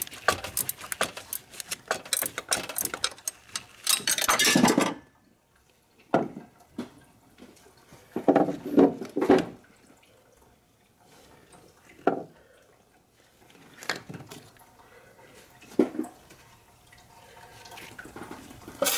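Metal hand tools clinking and rattling: a dense run of quick metallic clicks for about five seconds while a wrench works at the water pump pulley, then a few separate clinks and knocks.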